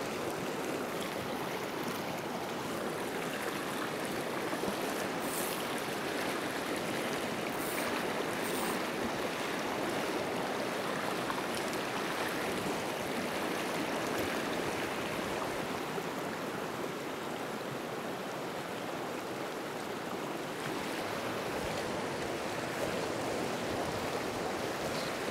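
A small, shallow river rushing over rocks in fast riffles: a steady, even rush of water.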